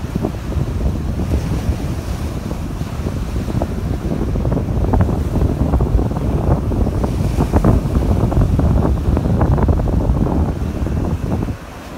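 Wind buffeting the microphone over waves breaking on a sandy beach, with a dip in the wind just before the end.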